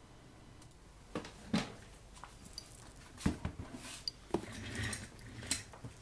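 Scattered light knocks and clicks of objects being handled, about half a dozen, the loudest about one and a half and three seconds in.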